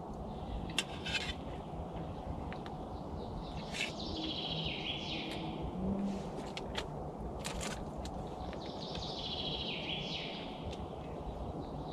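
Woodland ambience with a songbird singing two descending phrases, about four seconds in and again near nine seconds, over a steady low background noise. Scattered light clicks of a metal spoon against a camp pan, the loudest less than a second in.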